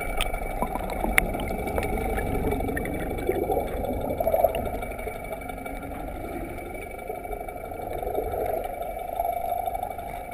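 Muffled underwater sound through a waterproof camera housing. A steady low rush and hum come from the boat's motor carried through the water, with a few faint clicks.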